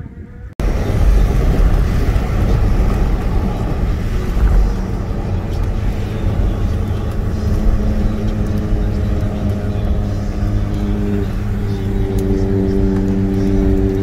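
Car driving on a rough, wet road, heard from inside the cabin: a loud low rumble of tyres and engine that starts abruptly about half a second in. A steady engine drone at constant revs comes through more clearly near the end.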